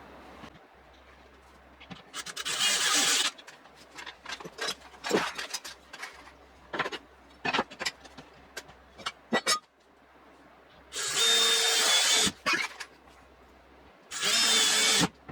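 A power drill running in three short bursts of about a second each, as when driving screws, with scattered knocks and taps of tools and wood between the bursts.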